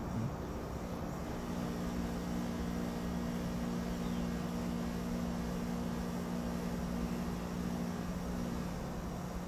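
Steady low mechanical hum, like a distant engine or motor, over a haze of outdoor background noise; the hum fades a little near the end.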